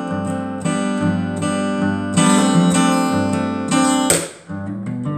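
Acoustic guitar strummed in chords as an instrumental passage between sung lines, with a brief break about four seconds in before the strumming picks up again.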